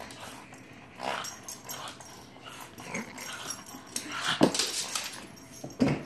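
West Highland white terrier growling and wheezing playfully with a toy in its mouth, in a run of short noisy huffs, with two short, sharper sounds about four and a half and six seconds in.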